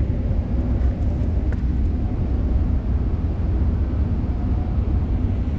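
Vacuum pump of a March CS-1701 reactive ion etcher running steadily with a low drone and hiss as it pumps the chamber down toward base pressure.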